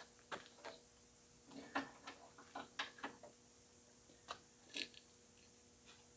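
Scattered light clicks and taps of hands handling the plastic bumper and grille trim of a car's front end, with a faint steady hum underneath.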